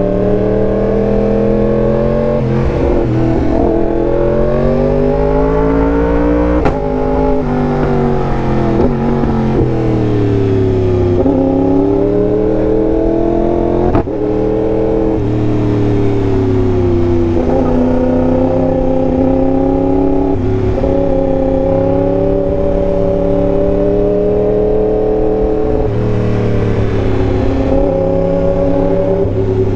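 Yamaha R1M's crossplane inline-four through an SC-Project exhaust under riding load, engine pitch repeatedly rising and falling as the throttle is opened and closed. There are sharp breaks in the note about seven and fourteen seconds in.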